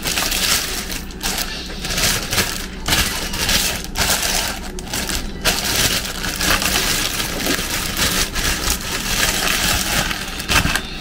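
A thin clear plastic bag crinkling and rustling in irregular bursts with short pauses as it is handled and pulled open to free a plastic bottle.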